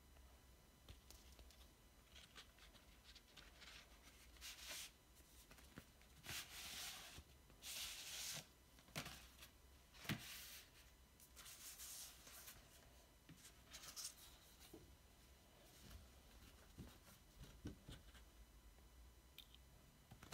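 Faint rustling of a vinyl album's card jacket and printed card inserts being handled, with the sheets sliding and rubbing against each other in several short swishes and a light tap about ten seconds in.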